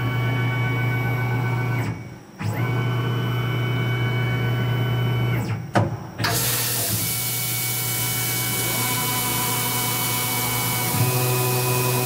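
Tormach PCNC 1100 CNC mill running with a steady hum and a set of whining tones, dropping out briefly twice. From about six seconds in a steady hiss of mist coolant joins, and near the end the machine's tones shift as the 4-inch side milling cutter spins up by the part.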